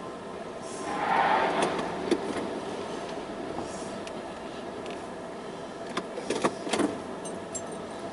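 Canadian National freight train rolling past, a steady rumble and hiss with a faint steady whine. It swells about a second in, and a cluster of sharp clicks and knocks comes about six seconds in.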